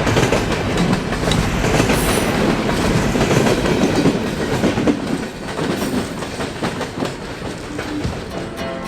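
Freight train railcars rolling past, wheels clicking over the rail joints, growing quieter about five seconds in.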